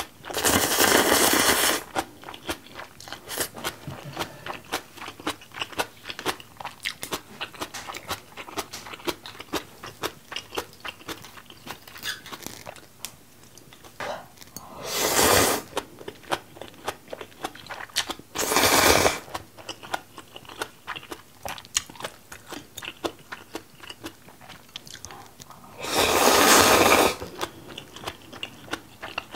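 Close-miked eating of instant ramen noodles in spicy seafood broth: four loud slurps of noodles, one at the start and three more spread through the rest, with wet chewing and mouth clicks in between.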